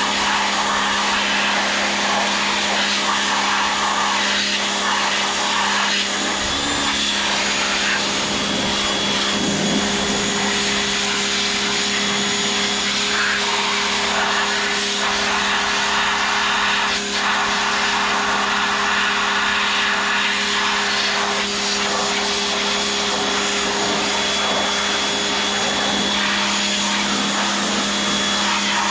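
Pressure washer running steadily, a constant motor hum under the hiss of its water spray as it blasts dirt and grease off a Tecumseh lawnmower engine.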